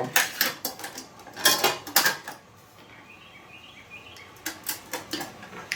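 Metal clinks and rattles from a Weber Smokey Joe's thin steel ash-catcher plate being fitted onto the grill's legs: a cluster of knocks, a lull, then more clinks near the end.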